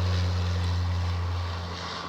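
A Saab 340's two General Electric CT7 turboprops make a steady low propeller drone, easing slightly near the end.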